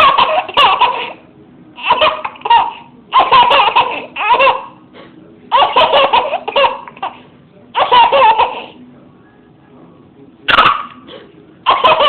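Baby laughing in a string of short, high-pitched bursts of giggles with brief pauses between them.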